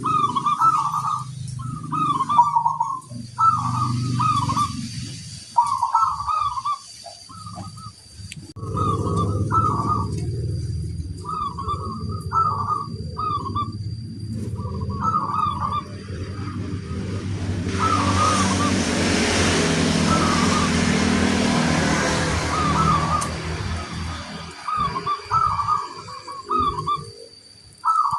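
Zebra dove (perkutut) cooing over and over in short phrases, one every second or two. A low rumble comes in about eight seconds in, with a hiss over it from about eighteen seconds, both gone by about twenty-four seconds.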